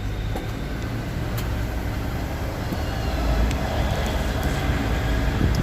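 BMW E39's front suspension moving with a low rumble and scattered clicks, and a faint high squeak coming in about halfway through. The creak comes from a front control-arm ball joint starved of lubrication.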